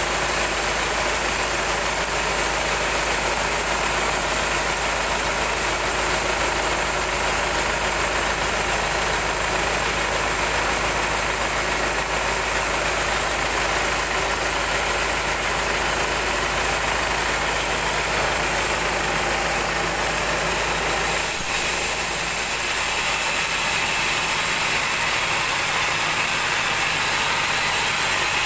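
Band sawmill running steadily as its blade cuts lengthwise through a large mahogany log. About three quarters of the way through, the low rumble drops away and the sound turns brighter.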